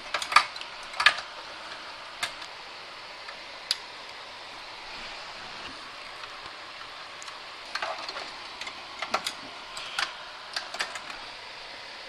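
Sheet-metal clicks and clanks from a metal drive caddy being handled and seated into a steel computer case, in a short cluster at the start and again in the last few seconds, with a couple of single taps between.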